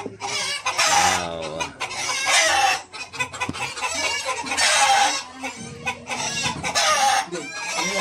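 Chickens clucking, with roosters crowing, one loud call after another.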